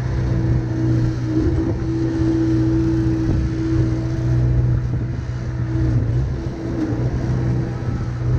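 An engine running steadily: a constant low hum with a held higher tone over it.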